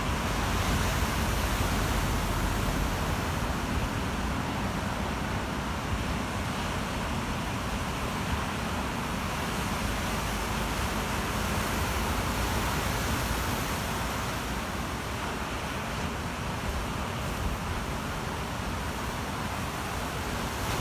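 Ocean surf: a continuous wash of breaking waves that swells slowly louder and softer.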